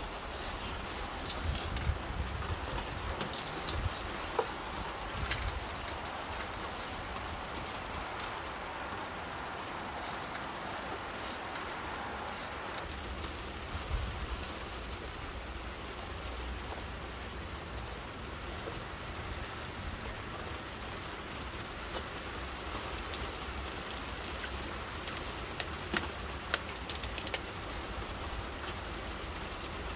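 Steady rain falling, with short hissing bursts of MTN 94 aerosol spray paint over roughly the first dozen seconds.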